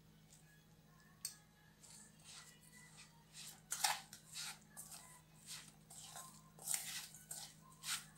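A spoon mixing a stiff semolina batter with chopped onion in a steel bowl: irregular short scraping strokes, about one or two a second, picking up from about three seconds in, over a faint steady hum.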